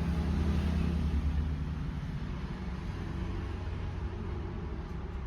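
Engine idling: a steady low rumble, a little louder for the first second and a half.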